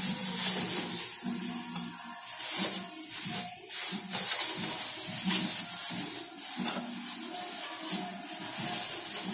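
Thin clear plastic bag rustling and crinkling as it is shaken open and handled, with background music.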